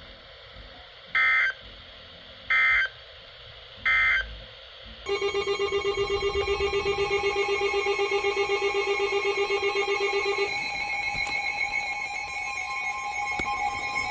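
Three short bursts of Emergency Alert System digital data tones, the end-of-message signal closing the tornado warning. About five seconds in, a fast-pulsing electronic alarm tone starts; a little past halfway its low pulsing drops out and higher, steadier tones carry on.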